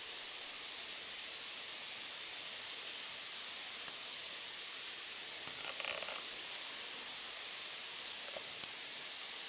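Steady even hiss of outdoor background noise. About six seconds in comes one short pitched sound lasting about half a second, the loudest thing here, and a fainter brief tone follows a little after eight seconds.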